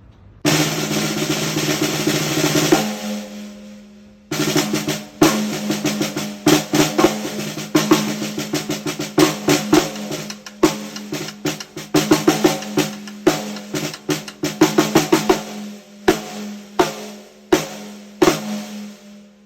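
TAMA 14 x 7 Starphonic copper snare drum being played: a roll about half a second in that rings out, then a pattern of separate strokes with a steady ring under them, dying away near the end.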